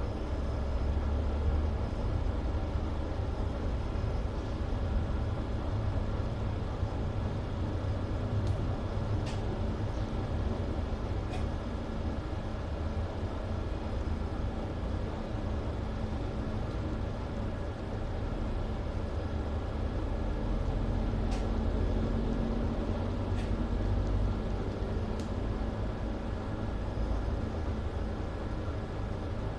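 Mercedes city bus running, a steady low engine and road rumble that swells a little about two-thirds of the way through, with a few faint clicks.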